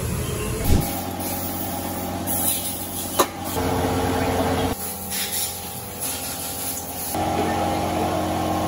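Steady machine hum with several tones, changing abruptly three or four times, with two sharp metallic clicks, about a second in and about three seconds in, as engine parts are handled.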